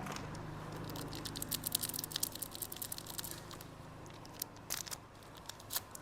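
Plastic candy packaging crinkling and tearing as it is handled and opened: a dense run of quick crackles for about three seconds, then a few scattered crackles near the end.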